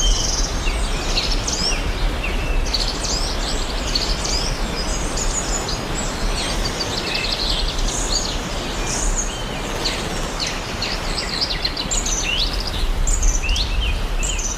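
Steady rushing noise of a waterfall, with many small birds chirping over it throughout.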